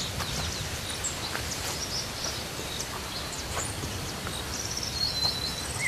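Steady rural outdoor ambience, an even hiss of wind and rustling, with a few faint bird chirps and a short run of them near the end.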